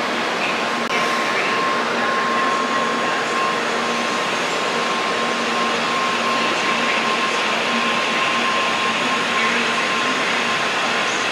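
Shinkansen train running at speed: a steady rushing noise with a faint, even hum.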